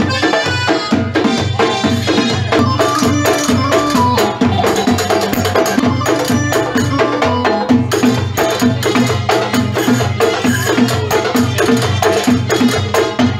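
Live Egyptian folk music for a tanoura whirling dance: hand-held frame drums beating a steady, fast rhythm under a melody with sliding notes.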